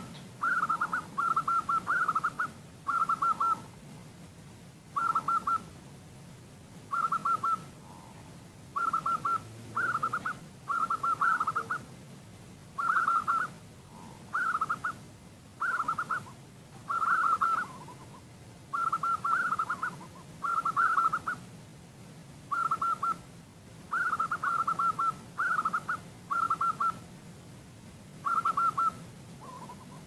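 Female zebra dove (perkutut) calling: short trilled coos, each about half a second, repeated every second or so and often in quick pairs or threes. This is the female's call, used as a lure to set male perkutut cooing.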